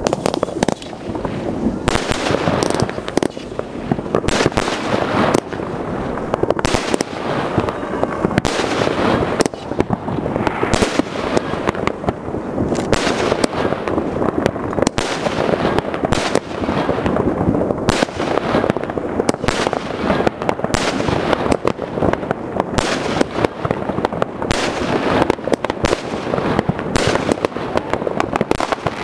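Consumer firework battery (cake) firing shot after shot: a rapid, unbroken string of launch bangs and bursts overhead, loud throughout.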